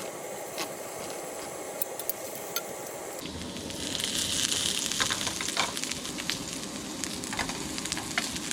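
Food sizzling as it fries in a pan, with light clicks of a utensil stirring it. The sizzle grows louder about four seconds in.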